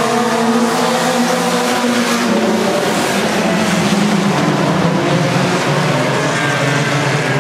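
A pack of sport compact dirt-track race cars running together, their four-cylinder engines sounding at once, each pitch rising and falling as drivers get on and off the throttle through the turns.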